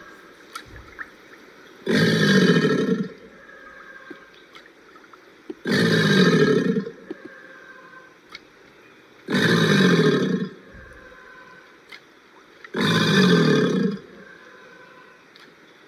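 Alligator calling: four calls of about a second each, repeated at even intervals of about three and a half seconds.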